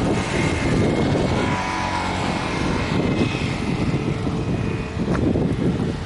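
Low, steady rumble of vehicle noise, with a short click about five seconds in.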